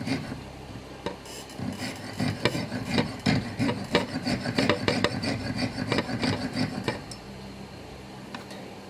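Piercing saw cutting bent teeth out of an antique clock wheel: repeated rasping strokes, a few a second, that stop about seven seconds in.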